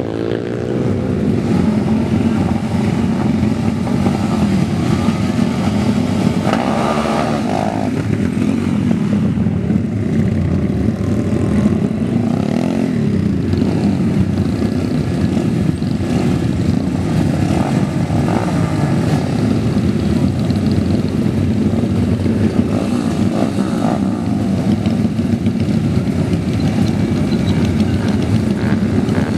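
Motorcycle engine held revving at high speed in one long, unbroken run, loud and steady.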